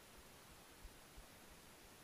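Near silence: a faint steady hiss with a few soft low knocks.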